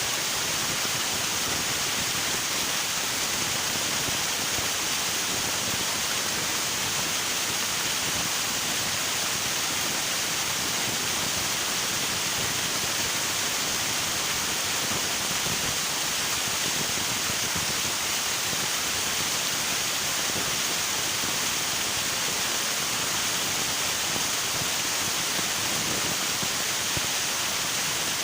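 River water rushing steadily, an even, unbroken hiss with no change.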